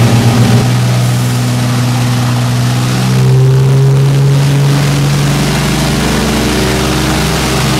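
Twin Merlin V12 engines of a de Havilland Mosquito running in flight, heard inside the cockpit. A pulsing beat in the engine note for about the first half second gives way to a steadier drone, which grows a little louder about three seconds in.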